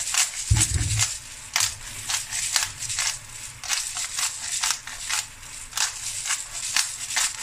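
Beef bones frying in a pot of oil and thick spiced gravy, sizzling with many irregular crackles and pops. A dull low thump about half a second in.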